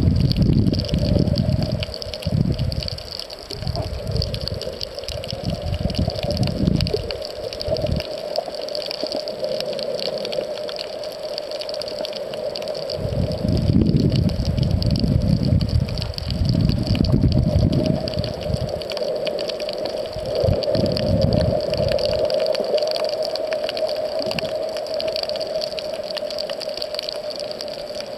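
Muffled underwater water noise from a camera held below the surface while snorkeling. Irregular low rumbling surges of moving water come and go over a steady hum and a faint high hiss.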